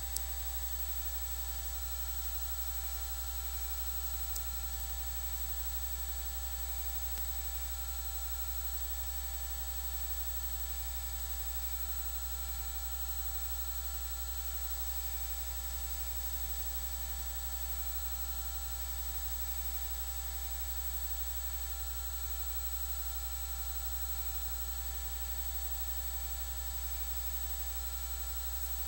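Steady electrical hum and hiss: a strong low mains hum under a fixed set of thin whining tones, unchanging throughout, with two faint clicks, one just after the start and one about four seconds in.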